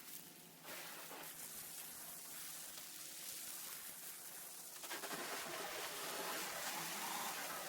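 Pressure washer spray hissing steadily against a hard surface, getting louder about five seconds in.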